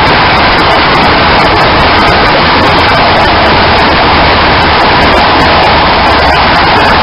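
Loud, steady rush of tyre and road noise and wind on a microphone mounted in a moving car's wheel well, next to the front tyre, with frequent small ticks.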